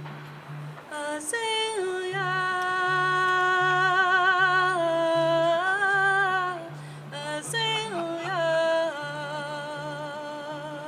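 Wordless sung intro: a single voice holding long notes with vibrato, sliding between pitches about eight seconds in, over a soft low pulsing accompaniment.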